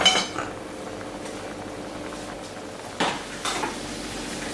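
Pot of pasta water boiling on a gas range, a steady bubbling hiss. About three seconds in, a metal wire skimmer knocks against the steel pot as the pasta is lifted out, followed by a few lighter clinks.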